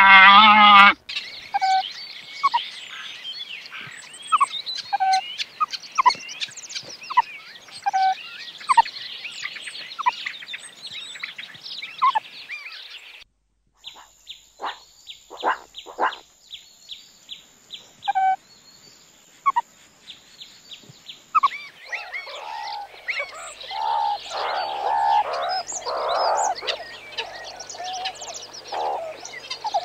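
Meerkats calling: many short, falling chirps and peeps with clicks, building into the dense, overlapping chatter of a group. It opens with a llama's loud call, which cuts off about a second in.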